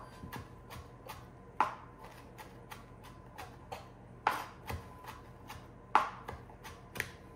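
Chef's knife mincing fresh parsley on a cutting board: a steady run of quick light taps, about four a second, with a few louder knocks among them.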